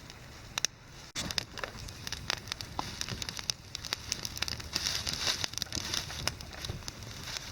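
Small campfire of damp wood crackling and popping as it catches, with irregular sharp snaps over a steady hiss, getting louder about a second in.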